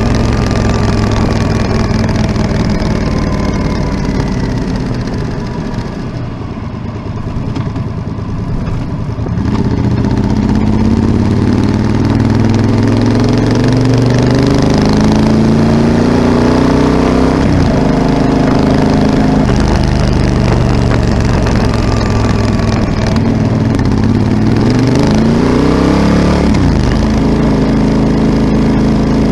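Yamaha Super Tenere XT1200ZE's parallel-twin engine through an aftermarket Delkevic 343 mm oval carbon-tipped exhaust. It eases off at first, then pulls with a rising pitch that drops suddenly twice, as at gear changes.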